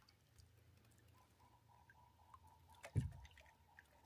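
Near silence with a faint steady high tone, a few small clicks and one dull low thump about three seconds in.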